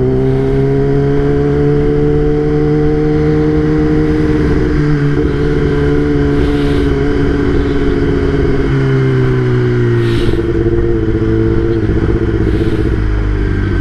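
Kawasaki ZX-10R's inline-four engine running while riding, its pitch climbing a little at first, holding steady, then dropping about nine seconds in as the throttle eases, over a steady rush of wind and road noise.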